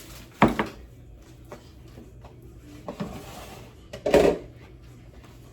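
Kitchen handling sounds: two loud knocks, one about half a second in and one just after four seconds, with a few light clicks between, as dishes are moved about and set down on the counter.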